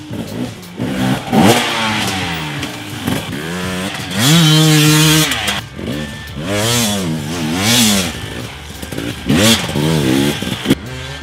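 KTM 250 XC-W two-stroke dirt bike engines being ridden hard, the revs climbing and dropping repeatedly as the throttle is worked. About four seconds in the engine holds one high rev for about a second, followed by a quick run of rev swings up and down.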